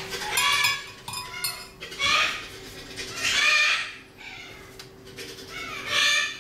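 Parrots squawking: several loud, harsh calls, each about half a second long, with short gaps between them.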